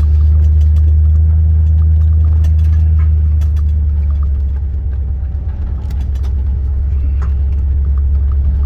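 Steady low drone of a vehicle's engine and tyres heard from inside while driving on a rough ranch road, with small rattles and clicks. The drone eases a little about halfway through.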